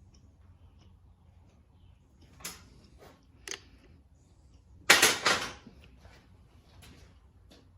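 A few knocks and clicks of hand tools on metal, with one loud clattering burst about five seconds in.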